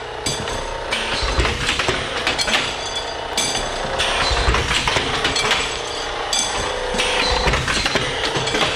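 Automatic batch tube cutter for brake and fuel line tubing running in cycle: a steady metallic clatter and hum, with a heavier knock about every two and a half to three seconds as each length of tube is cut off.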